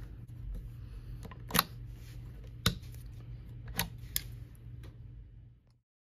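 Four sharp plastic clicks, a second or so apart, as a plug is pushed into and handled at a smart in-wall outlet, over a low steady hum.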